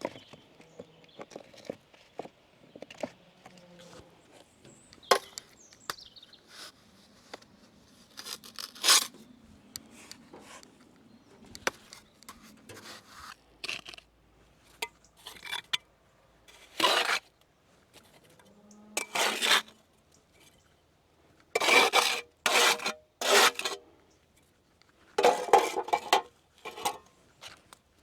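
A trowel scraping lime mortar against stone, in irregular short strokes with pauses between them, as joints and voids in an old stone wall are packed and pointed.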